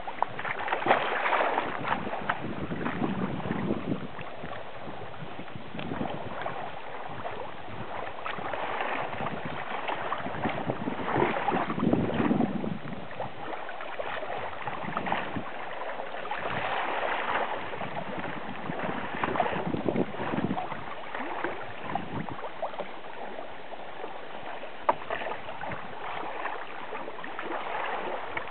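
Sea kayak being paddled: paddle splashes and water sloshing against the hull, swelling and fading every couple of seconds.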